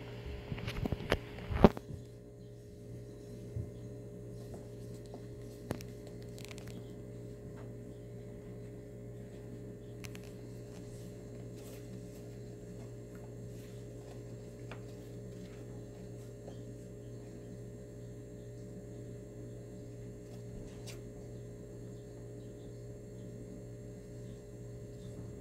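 Steady low electrical hum, with a few sharp knocks in the first two seconds, the loudest just before the two-second mark.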